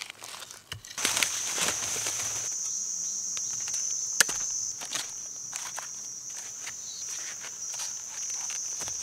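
A steady, high-pitched insect drone starts about a second in and runs on. Over it come scattered sharp knocks of a blade chopping the tough base of freshly dug bamboo shoots, with one louder crack about four seconds in.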